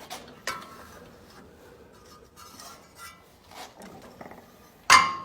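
Willys Jeep engine being turned over by hand: soft metallic clicks and rubbing as it turns, then one loud, sharp metal clank near the end. The engine turns freely, a sign that it is not seized.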